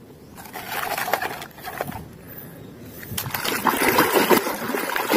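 Water splashing and sloshing as a hand scrubs a muddy toy truck in water. It gets louder about three seconds in.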